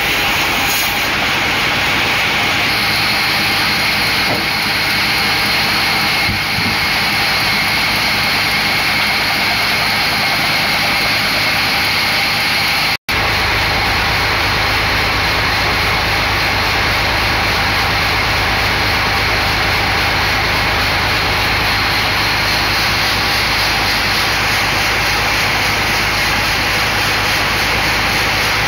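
A log band saw running and cutting lengthwise through a large log, a loud, steady machine noise. About halfway it breaks off abruptly into a different steady machinery noise with a strong low hum.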